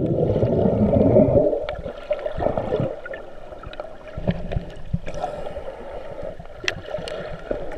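Muffled underwater sound from a camera held just below the surface of shallow sea water: churning and gurgling, loudest for the first second and a half, then settling to a steady hum with a few sharp clicks.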